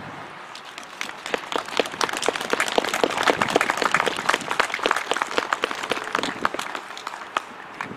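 Audience applauding: the clapping builds about a second in and tapers off near the end.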